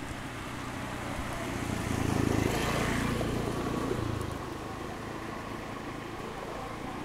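A motor vehicle's engine passing by: a low hum that grows louder about two seconds in, peaks, then fades a couple of seconds later.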